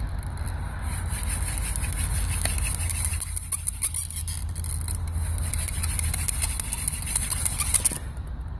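Hand drill at work: a mullein spindle spun between the palms grinds into a willow hearth board with a hissy scraping of many rapid strokes, which stops abruptly about eight seconds in. A steady low rumble runs underneath.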